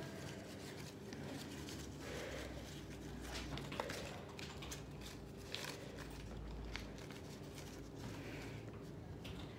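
Room tone with a steady low hum, overlaid by rustling and a few light knocks from the phone being handled and moved.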